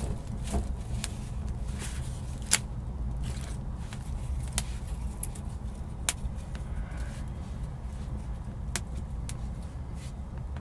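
Small fire of dry twigs crackling, with scattered sharp pops and snaps over a steady low rumble, as more sticks are laid on it.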